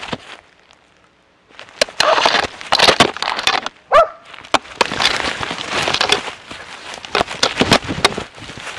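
A dog running through forest undergrowth, with brush and branches scraping and rustling against its harness camera. The sound drops almost to nothing for about a second near the start. About four seconds in there is one short, rising dog bark.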